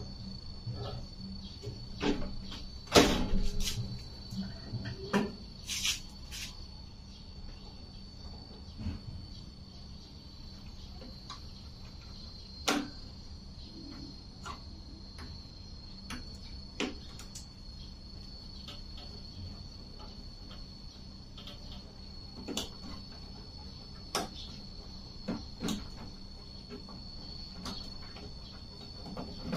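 Scattered clicks and knocks, the loudest a cluster about three seconds in, then only now and then, over a steady high-pitched whine.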